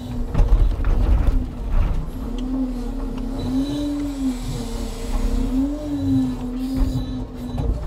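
Hydraulic log-loading crane on a timber truck working: a pump whine that rises and falls in pitch as the crane is worked, with heavy knocks and clunks of logs, loudest about half a second in and right at the end.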